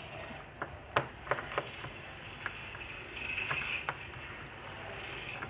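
Scattered light clicks and taps of small tools and plastic parts being handled while a Samsung Galaxy J5 (2016) phone is taken apart, most of them in the first half, with a brief soft hiss a little past the middle.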